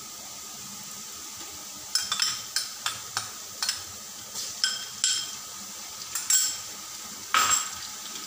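Oil sizzling low under browned onions in an aluminium pot while garlic-ginger paste is spooned in. From about two seconds in come a dozen or so sharp metal clinks and scrapes of a spoon against the pot, the loudest near the end.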